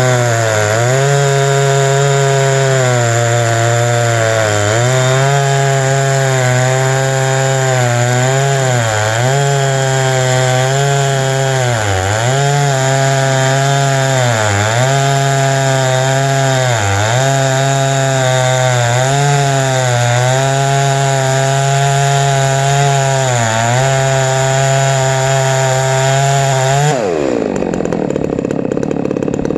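Huztl MS660-clone two-stroke chainsaw in a chainsaw mill, ripping a large cherry log at full throttle. Its pitch dips briefly every two or three seconds as it works through the cut. Near the end the throttle is released and the engine falls to idle.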